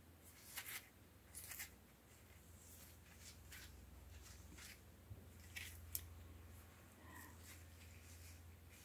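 Faint, irregular scratchy strokes of a rusty old door handle being rubbed clean by hand with an abrasive, over a steady low hum.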